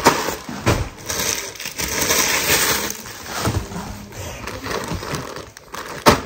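Clear plastic packaging crinkling and crackling as it is handled and unwrapped, with many small sharp clicks and one louder crackle near the end.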